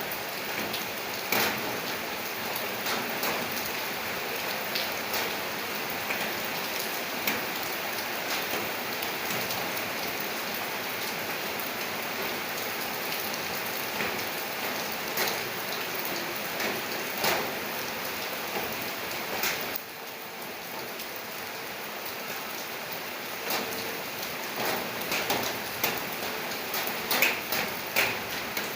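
Steady rain with irregular sharp drops tapping on a surface. It turns a little quieter about two-thirds of the way through, and the drops come thicker near the end.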